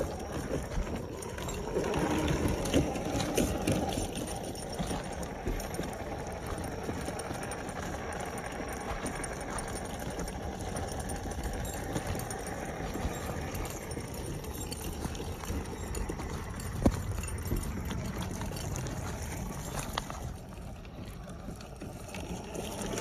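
Off-road RC car driving over rough ground: the motor runs under a dense clatter of many small clicks and knocks from the tyres and chassis, loudest about two to four seconds in, with one sharp knock near the end.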